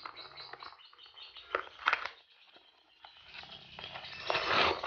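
Small white cardboard box being opened by hand: short scrapes and paper rustling, a brief pause, then longer rustling that grows louder near the end. Faint high chirps near the start.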